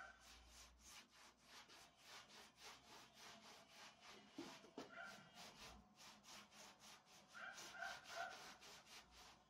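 Paintbrush scrubbing back and forth over charred wooden boards as a dark finish is brushed on, about three faint strokes a second.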